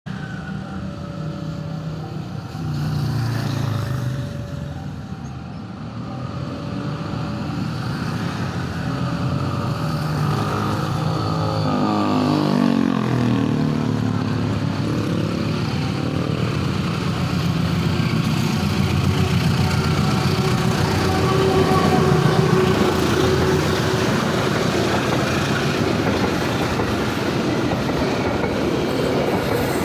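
A train approaching and passing, its rumble and rail noise building steadily and loudest about two-thirds of the way through. An alternating two-tone signal repeats during the first third.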